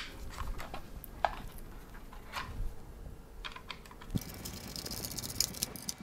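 Scattered light clicks and taps of a screwdriver and screws against the plastic faceplate of a Den smart light switch as the screws are lined up with the back box. About four seconds in, this gives way to fast, fine ticking as a screw is worked in.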